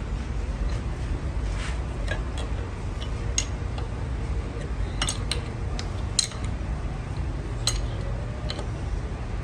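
Metal parts or tools clinking and tapping against each other, about seven sharp clinks spread unevenly, over a steady low machine hum.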